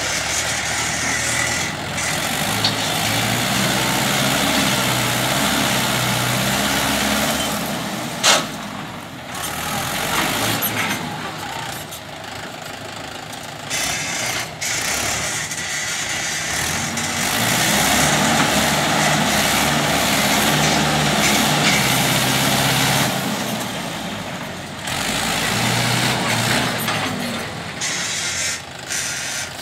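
Mahindra 585 tractor's four-cylinder diesel engine working under load as it pushes dirt with a front dozer blade, its pitch rising and falling several times, under a strong steady hiss. A single sharp knock about eight seconds in.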